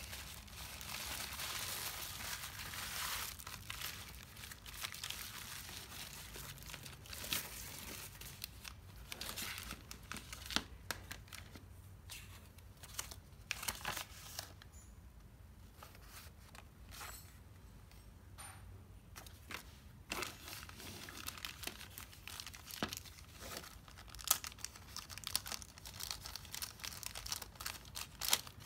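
Plastic bubble wrap and small zip-lock plastic bags crinkling and crackling under the hands as they are unwrapped and handled, dense at first, then in scattered bursts with light clicks and taps.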